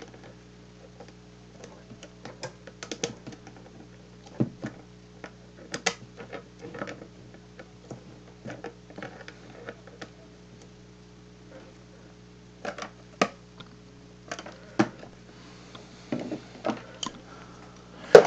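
Pliers working a nut tight on a terminal bolt of a plastic dipole centre insulator: scattered, irregular light metal clicks and taps, a few sharper than the rest, over a steady low electrical hum.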